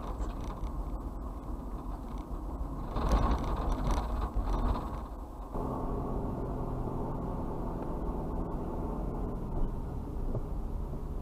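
Road and engine noise of a moving car heard inside the cabin through a dashcam microphone. It swells louder between about three and five seconds in, then changes abruptly to a steadier low hum about five and a half seconds in.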